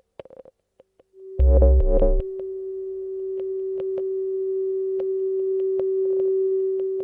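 Electronic music: a steady held synthesizer tone with scattered sharp clicks, and a loud low chord about a second and a half in.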